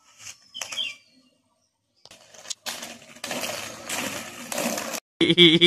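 Inline skate wheels rolling on a rough asphalt road: an even, gritty rolling noise starting about two and a half seconds in. Near the end a loud pitched sound cuts in abruptly.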